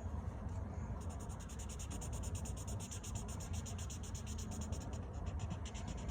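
Felt-tip marker scribbling on paper in rapid, even back-and-forth strokes, several a second, as a shape is coloured in. The strokes start about a second in and stop near the end.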